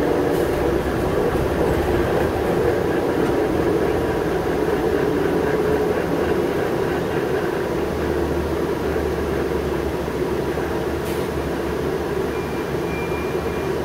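Interior running noise of a New Flyer C40LF natural-gas transit bus under way: a steady drone of engine and drivetrain with a faint held whine.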